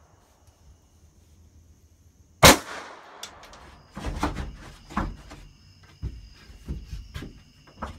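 A single loud gunshot about two and a half seconds in, followed by a run of lighter irregular knocks and clanks with a faint high ringing.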